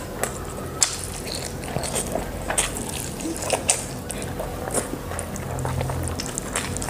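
Close-miked wet eating sounds: a person chewing and smacking on a soft, runny half-boiled egg omelette, with irregular sharp mouth clicks.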